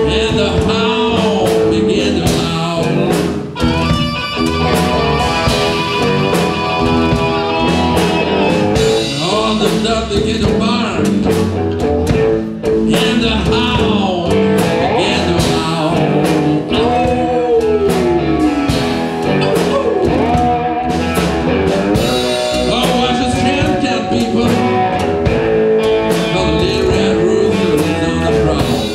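A blues band playing live, with cigar box guitars and drums. Sustained notes bend and slide over a steady rhythm, with one long downward slide about two-thirds of the way through.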